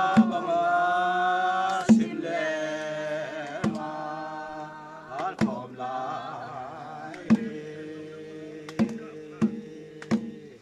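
A group of voices singing a slow, chant-like traditional song with long held notes, accompanied by a small hand-beaten, double-headed laced barrel drum struck about every two seconds, a few beats coming closer together near the end. The singing grows quieter after the first few seconds.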